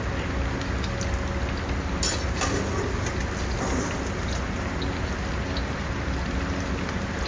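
Coated chicken pieces deep-frying in hot oil in a steel karahi: a steady, dense sizzle.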